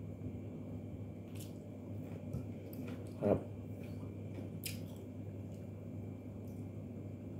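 Mouth sounds of a person eating fried rice and small fish with the fingers: soft chewing and smacking with a few sharp clicks, and one short louder mouth sound about three seconds in. A steady low hum runs underneath.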